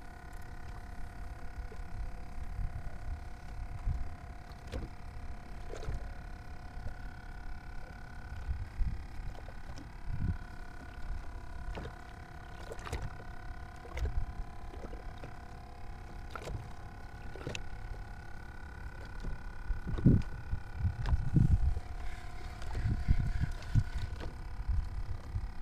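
Fishing kayak sitting on choppy water: water slapping and knocking against the plastic hull, with a low rumble of wind on the microphone and a faint steady hum. The splashes and knocks grow louder about twenty seconds in.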